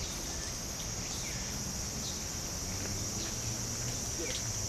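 Cicadas buzzing in one steady high-pitched drone, with a few faint short chirps over it and a low rumble underneath.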